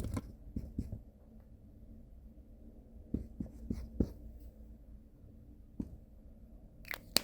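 Dry-erase marker writing on a whiteboard in short scratchy strokes, with pauses between bursts. A brief squeak comes near the end, then a sharp click.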